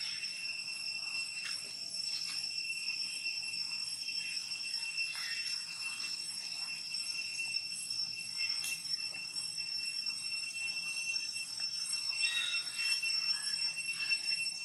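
Steady high-pitched insect drone in the trees, with scattered faint clicks and short chirps.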